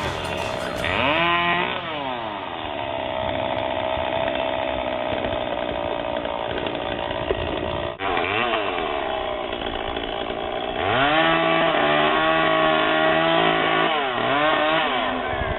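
Chainsaw running as it cuts into a tree, its engine revving up and dropping back several times, with a brief break about halfway through.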